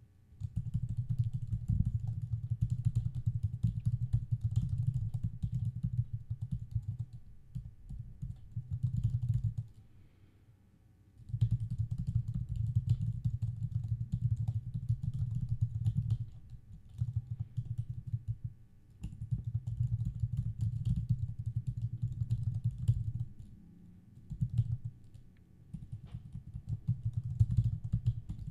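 Typing on a computer keyboard: fast runs of keystrokes that stop briefly a few times before going on.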